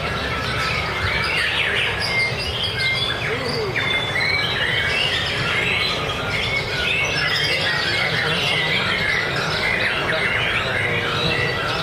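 White-rumped shama (murai batu) singing nonstop: a dense run of varied whistles and chirps, with other caged songbirds singing over it at the same time. A steady low rumble runs underneath.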